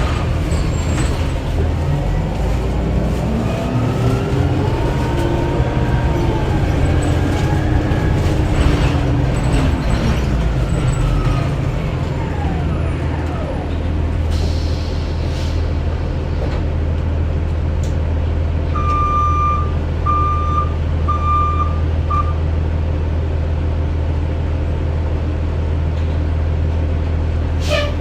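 Inside a 2009 Orion VII Next Generation hybrid bus with a BAE Systems HybriDrive and Cummins ISB diesel: the hybrid drive's electric whine rises and then falls as the bus speeds up and slows down. The bus then settles to a steady low diesel hum at rest. Later come four short electronic beeps, and a brief sharp hiss at the very end.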